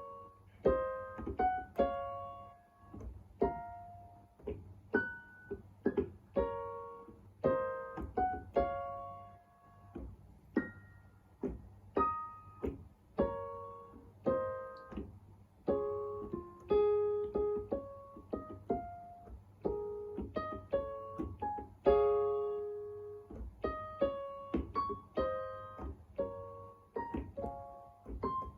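Electronic keyboard playing a slow melody with chords, one note or chord at a time at an uneven pace, as a learner on the third day of practice plays it.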